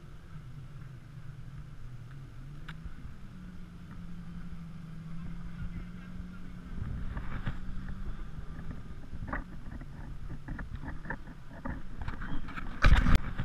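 A steady low motor drone with a slightly wavering pitch. From about halfway, irregular clicks and rustles join it, and a loud bump comes near the end.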